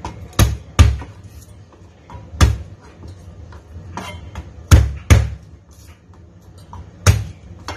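Hand slapping down on the flat of a chef's knife laid over a garlic bulb on a plastic cutting board, crushing and breaking the cloves apart: six sharp thuds at uneven intervals, the two loudest close together a little before the middle.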